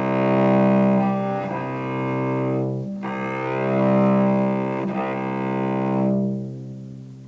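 Cello played with long, sustained bow strokes on one string, the note carried through several smooth up- and down-bow changes with only brief breaks between strokes. An exercise in joining bow changes without jerkiness; the sound fades out about six and a half seconds in.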